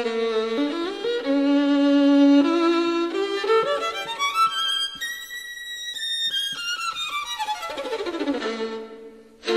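Solo violin music: a melody climbs note by note to a high held note about halfway through, then steps back down and fades out near the end.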